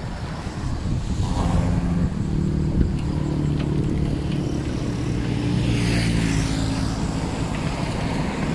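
Motor vehicle engine running at a steady pitch while travelling, with road noise.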